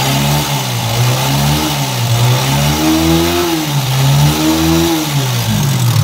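A TVS Apache RTR 160 4V's single-cylinder engine revved up and down three times. It makes what the mechanic calls a very wrong, excessive engine noise, on a bike that is also blowing white smoke and burning a lot of oil; he plans to open the cylinder bore to find the cause.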